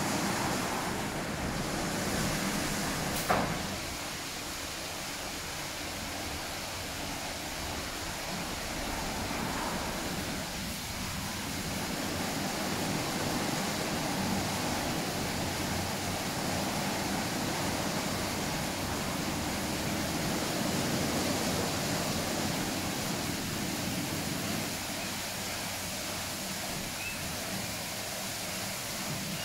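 Automatic rollover car wash running: its rotating brushes and water spray working over a car, a steady hiss with a low rumble. A single sharp click sounds about three seconds in.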